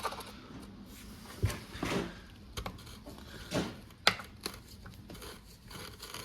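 Scattered light clicks and knocks of metal parts being handled during the teardown of an electric unicycle, as its long metal rods are worked out and checked. About half a dozen separate taps.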